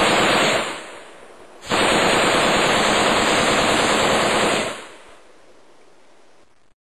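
Automatic gunfire of 7.62 NATO rounds. A burst ends about half a second in, then a second, longer burst runs for about three seconds.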